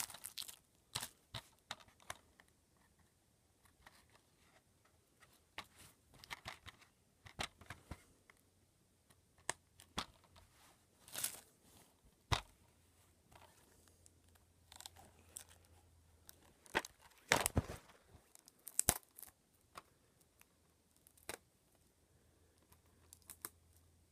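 Packaging being handled and pulled open by hand: irregular crinkles, rustles and short tearing sounds with quiet gaps, loudest about two-thirds of the way through.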